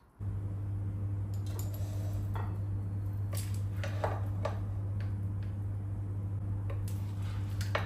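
A serving spatula scraping and clinking against a nonstick pot and a ceramic plate as rice is scooped out, a dozen or so short knocks and scrapes. Under them is a steady low hum that starts suddenly just after the start and is the loudest sound.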